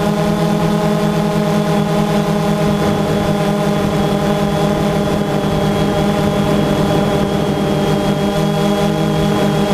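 DJI Phantom 2 quadcopter's four electric motors and propellers, heard from the GoPro mounted on the drone in flight: a loud, steady hum of several tones with a thin high whine, shifting slightly in pitch about eight seconds in.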